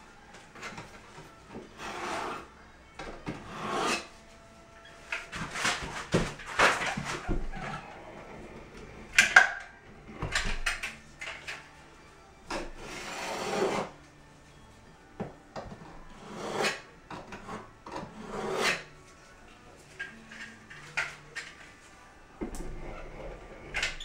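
Putty knife spreading and smoothing urethane waterproofing sealant into the corners of foam backer board, in irregular scraping strokes of about a second each. There is one sharp knock about nine seconds in.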